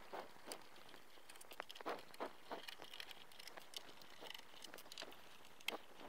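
A screwdriver backing screws out of the case of a TRS-80 Model 3: a faint, irregular run of short clicks and scrapes.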